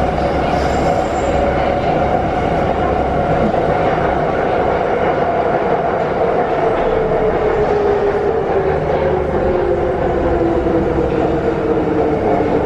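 Wagonmash series 81 metro train (81-572.2/81-573.2 cars) running in the tunnel, heard from inside the car: a steady rumble of wheels on rails with a whine over it. From about eight seconds in the whine falls steadily in pitch as the train slows.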